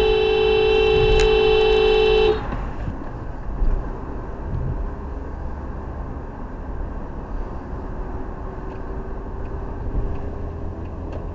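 A car horn held in one long two-note blast that cuts off about two seconds in. Steady road and engine rumble heard from inside the car follows.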